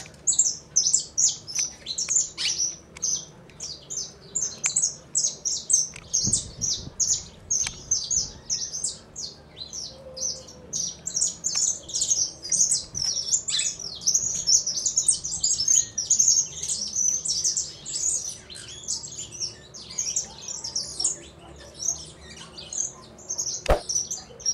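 Small cage birds chirping: a steady stream of short, high chirps, several a second. One sharp click near the end.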